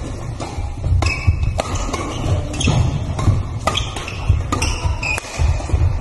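Badminton rackets striking a shuttlecock in a fast doubles rally, sharp hits coming about every half second, with shoes squeaking on the court floor between the hits.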